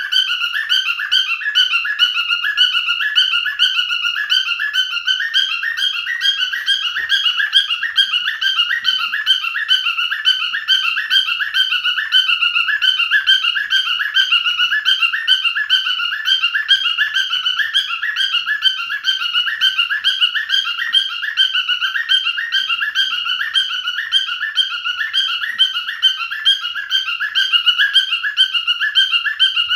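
Male cockatiel chirping and whistling in a rapid, unbroken stream of short repeated calls.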